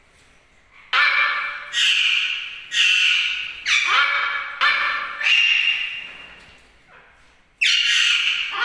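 Macaws squawking: a run of about six loud, harsh calls in quick succession, a short pause, then another squawk near the end.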